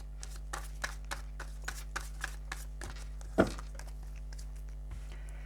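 Tarot cards being shuffled and handled: a run of quick, soft clicks and flicks, with one louder knock about three and a half seconds in, over a steady low hum.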